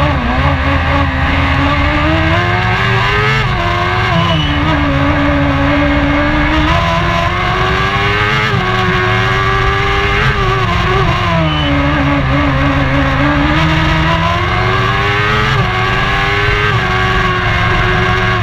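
Race car engine at full effort, heard from inside the cockpit. Its pitch climbs under acceleration and falls back again and again, about eight times, as the car changes gear and lifts for corners.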